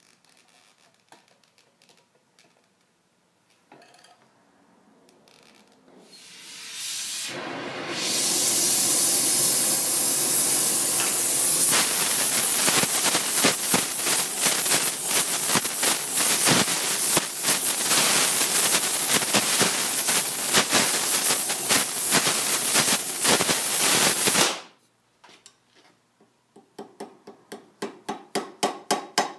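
Gas torch flame hissing loudly with a crackle, swelling in over a couple of seconds and cutting off sharply, as it heats a copper piece on firebricks. Near the end, quick light hammer blows, about five a second, on sheet copper held over a metal stake.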